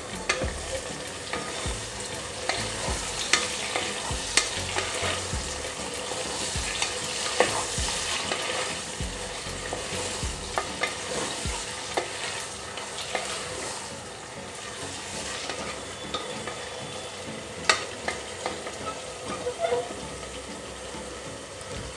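Wooden spatula stirring and scraping onions, tomatoes, green chillies and fresh mint and coriander leaves frying in oil in an aluminium pressure cooker. A steady sizzle, with irregular sharp knocks as the spatula hits the pot.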